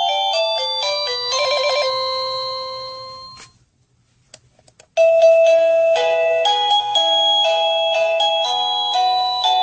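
Sadotech Model C wireless doorbell chime playing an electronic melody of stepping notes that fades out about three and a half seconds in. After a few faint clicks, a different melody starts suddenly about five seconds in.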